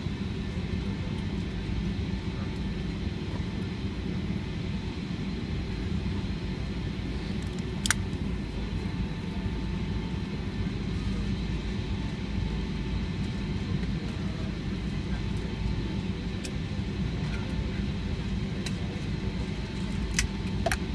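Steady low rumble inside a Boeing 757's passenger cabin on the ground, with a sharp click about eight seconds in and two more near the end.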